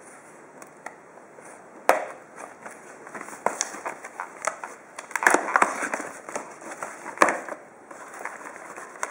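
A small cardboard box being handled and cut open with a pocket knife: scattered clicks and crackling of tape and cardboard, busiest about five seconds in, with a sharp knock about two seconds in and another near seven seconds as the flaps are torn open.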